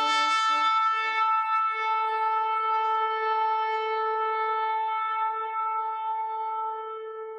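Shofar blown in one long held blast, opening with a brief lower note that jumps up to the main pitch and fading toward the end.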